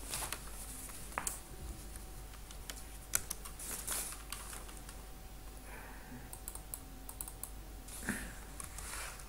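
Clicks of a computer keyboard and mouse while text is edited: scattered keystrokes and clicks, with a quick run of keystrokes about two-thirds of the way through.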